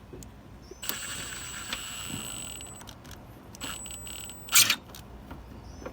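A small power driver's motor whining steadily for about two seconds, then again briefly, as a screw is driven into the headlight housing. A sharp metallic clank follows near the end.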